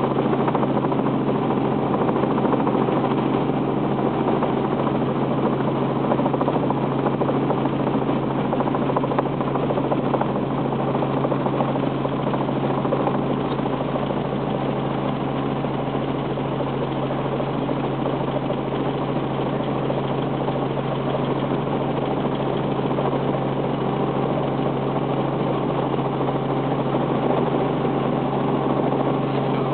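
Light training helicopter's engine and rotor running steadily in cockpit, a constant low drone with engine noise over it, through a descending approach to land.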